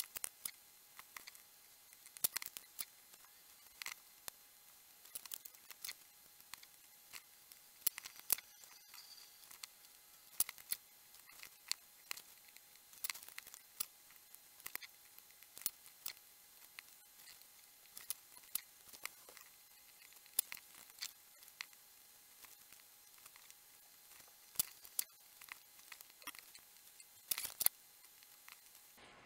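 Irregular sharp clicks and taps of small-scale soldering handwork, fast-forwarded: the soldering iron and solder wire touching pins and the plastic headers and boards of an electronic badge being handled.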